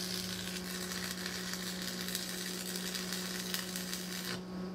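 Stick welding on a steel frame seam: the arc crackles and sizzles steadily, then cuts off abruptly about four and a half seconds in as the bead is stopped. A steady hum runs beneath throughout.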